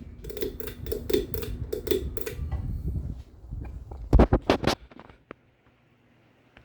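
Hampton Bay Gazebo ceiling fan running, its air pulsing rhythmically against the microphone; the uploader says a bad capacitor keeps it on high at every speed. About four seconds in there is a quick run of sharp clicks, and then the sound drops to a faint hum.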